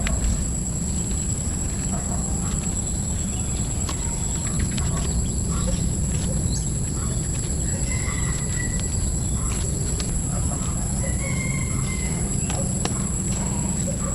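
Steady low rumble with a constant high-pitched whine over it, scattered light clicks and taps, and two short bird chirps about eight and eleven seconds in.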